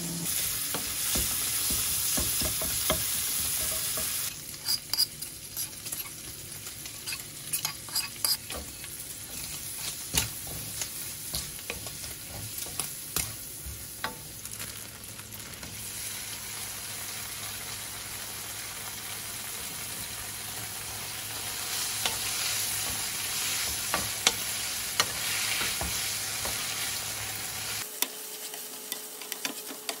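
Bacon sizzling in oil in a frying pan, a wooden spatula stirring it and knocking against the pan in many short clicks. Later, thawed udon noodles are stir-fried with the bacon, the spatula scraping and tapping the pan over the sizzle.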